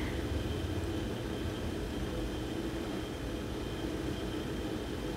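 Steady background hum and hiss with no distinct events: room tone.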